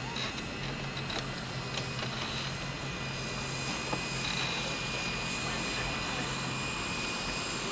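Airliner engines running steadily before takeoff: a continuous hum with a thin high whine, with a few faint clicks in the first few seconds.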